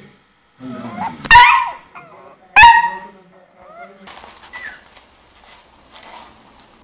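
A puppy barks twice, two sharp high yaps about a second apart, with softer whines around them. Newborn puppies then make faint high squeaks.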